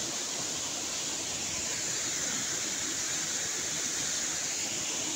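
Steady rushing of a waterfall and its stream, an even hiss of falling water with no breaks.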